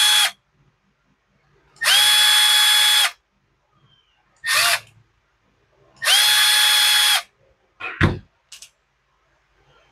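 Cordless driver spinning in short bursts, backing small screws out of a two-stroke diaphragm carburetor. A steady whine cuts off just after the start, then runs of about a second come at about 2 s and 6 s, with a brief burst between them. A single thud comes near the end.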